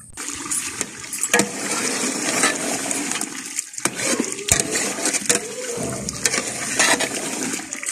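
Chicken pieces frying in masala in a large metal pot, sizzling steadily, while a long steel ladle stirs them and scrapes and knocks against the pot.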